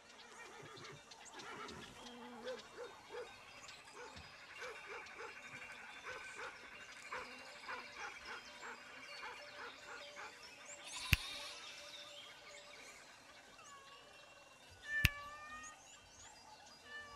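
Farmyard animal sounds: a string of short animal calls and chirps, some wavering up and down in pitch, with two sharp clicks a few seconds apart.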